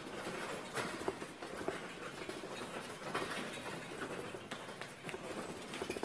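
Small caster wheels under a wooden platform carrying a large sleigh prop, rolling and rattling over a concrete floor as it is pushed and pulled along, with irregular clicks and knocks.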